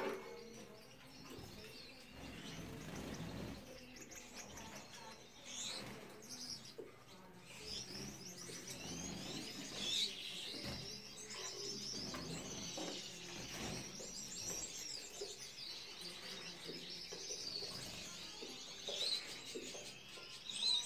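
Gouldian finches chirping, turning into a continuous run of high twittering song about a third of the way in.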